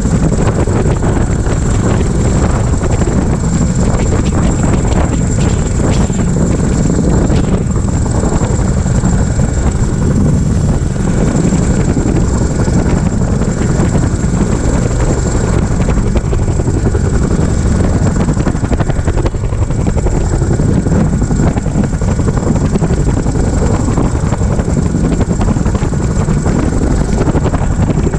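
CH-47F Chinook tandem-rotor helicopter hovering, its rotors and turbine engines running loud and steady, with a thin high whine running through it.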